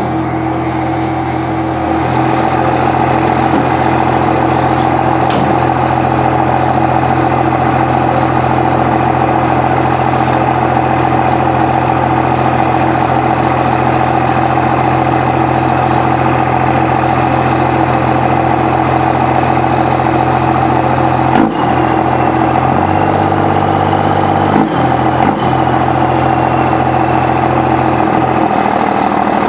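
Dodge truck's 5.9-litre 12-valve Cummins inline-six diesel running steadily, with a few brief changes in its note in the last third.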